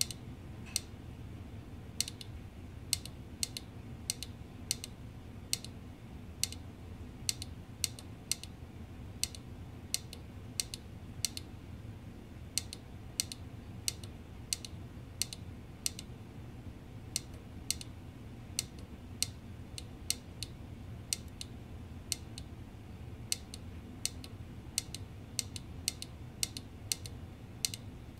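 A small tactile push-button switch on a digital-clock circuit board clicking under a fingertip, pressed over and over at about two clicks a second, unevenly spaced. Each press steps the clock's digits while its time is being set.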